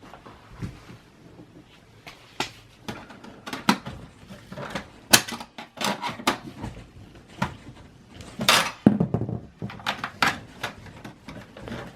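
Irregular plastic and metal clicks, knocks and rattles as parts inside a Dell Optiplex 780 small-form-factor desktop are handled while the power supply's cables are unplugged. There is a louder cluster of clatter about two thirds of the way through.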